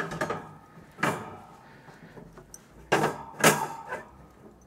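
Metal grill grate being set down into a kamado barbecue and shifted into place, clanking several times with a short metallic ring. The loudest clanks come as a pair about three seconds in.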